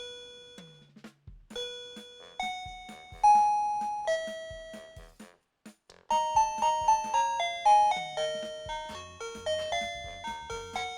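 Plug-in wireless doorbell receiver playing its built-in electronic chime tunes. A slow melody of a few notes ends, and after a brief pause about six seconds in a faster tune of many quick notes begins.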